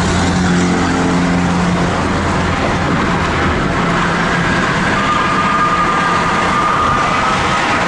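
Steady road and engine noise of a car cruising at highway speed, heard from inside the cabin, with a low hum in the first couple of seconds and a faint high whine joining about five seconds in.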